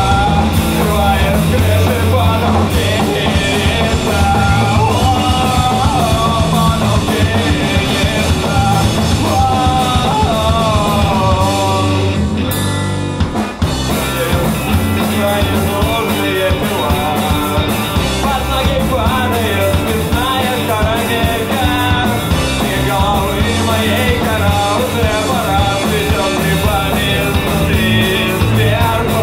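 Rock band playing live, loud, with a wavering sung or lead line over bass and drums; the music drops out for about a second near the middle, then comes back in.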